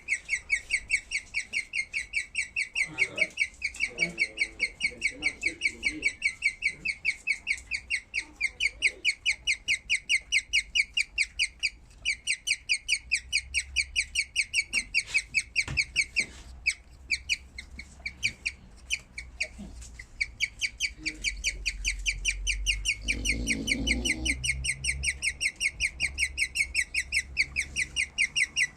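Skinny pig (hairless guinea pig) chirping: a fast, even run of high, bird-like chirps that goes on and on, thinning out briefly about halfway through.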